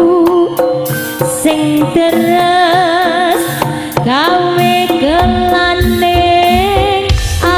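Live jaranan gamelan music: kendang drums beat quickly under a high, wavering melody line. A deep low tone comes in about five seconds in.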